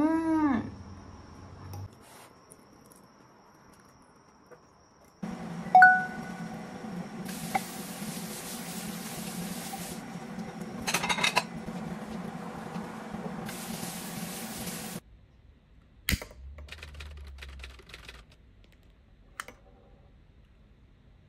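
Kitchen tap running into a stainless-steel sink while dishes are washed by hand, the flow changing in strength, with a ringing clink of a dish and a cluster of clinks partway through. The water stops about two-thirds of the way in, and a single sharp click follows.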